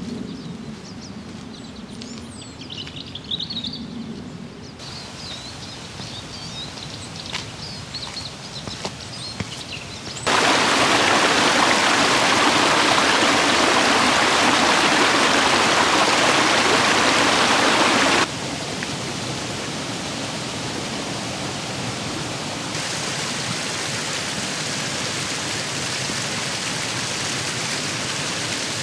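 Outdoor sounds cut together: birds chirping over a soft steady background for about the first ten seconds, then heavy rain hissing loudly for about eight seconds, then steady, lighter rain that cuts in suddenly.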